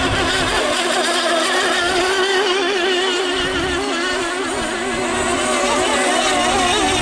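Radio-controlled scale model racing hydroplanes running flat out on the water. Several small engines sound together as an overlapping whine whose pitch keeps wavering up and down.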